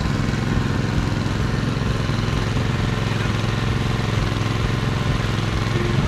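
Small petrol engine of a floating pump running steadily, pumping out the remaining water from the drained river section.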